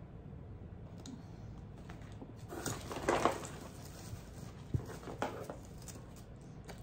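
Paper rustling and crinkling as hands dig through the shredded-paper stuffing of a piñata. The rustle is loudest about three seconds in, with another brief rustle near five seconds.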